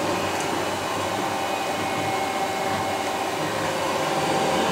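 Raise3D N1 3D printer running mid-print: a steady fan whir with a few faint steady tones over it.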